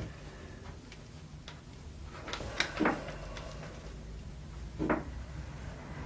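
Faint handling sounds of stripped copper lamp-flex wire ends being twisted together by hand: soft rustles with a few small clicks, a cluster of them a little past the middle and one more near the end.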